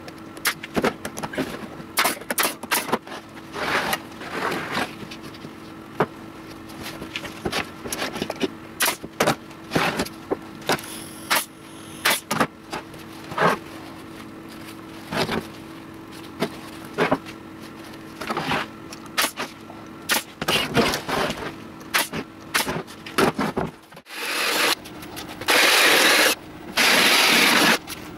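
Wooden boards and tools knocking and clattering on a workbench, many short sharp knocks, over a steady low hum. Near the end a cordless drill runs in two loud bursts of about a second each, boring holes in a board.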